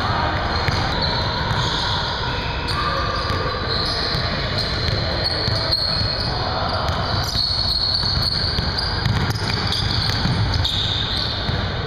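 Basketball being dribbled hard on a hardwood gym floor: repeated sharp bounces throughout, with players' footwork around them.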